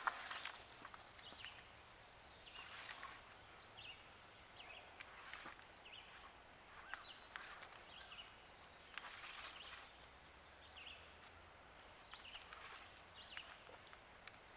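Near silence, with faint scattered rustles and scrapes as electrical wire and a PVC pipe are handled, and a few faint bird chirps.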